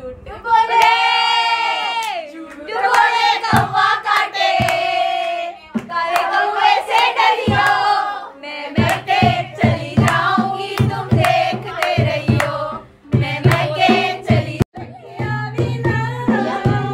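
Women singing a wedding song together with steady rhythmic hand clapping; a low drum beat joins about nine seconds in.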